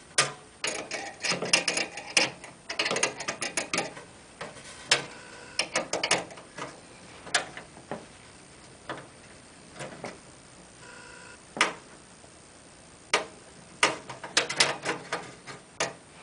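Screwdriver working a small screw into a motherboard mounting point inside a metal PC case: irregular clusters of sharp metallic clicks and scrapes, with short pauses between them.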